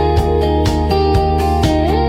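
Upbeat background music: plucked guitar over sustained keyboard notes, with a steady beat of about four strokes a second and a short upward slide near the end.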